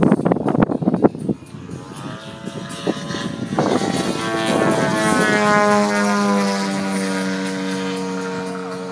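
Music with a beat that cuts off about a second in. Then a radio-controlled Sukhoi Su-29 aerobatic model plane's engine and propeller pass overhead: the engine note grows louder, drops in pitch as the plane goes by, then holds steady and fades.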